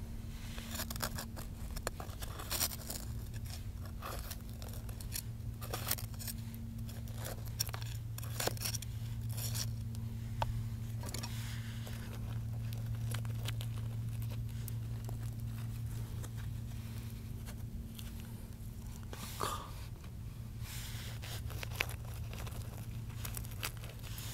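Irregular scratching, scraping and crunching as a metal rod and gloved fingers dig loose grit and rock debris out of a small crystal pocket (vug) in the rock. The clicks and scrapes come unevenly throughout, over a steady low hum.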